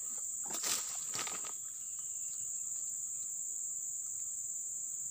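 Steady high-pitched insect chorus, with a brief noisy burst about a second in.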